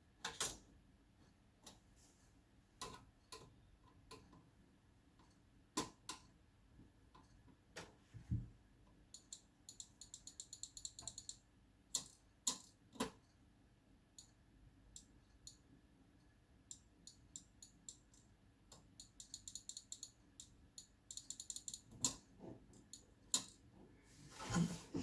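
Scattered clicks, taps and knocks of tools and plastic parts being handled while a projector is taken apart, with two runs of rapid, even ticking and a longer scrape near the end.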